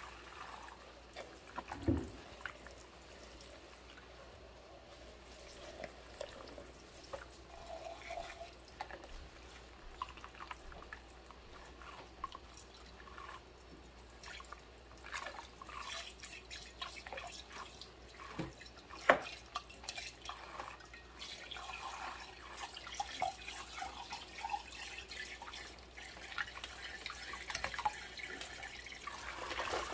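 Dishwashing in a soapy stainless-steel sink with rubber-gloved hands: water dripping and splashing, with scattered small clicks and rubbing sounds and one sharper knock about two-thirds of the way through.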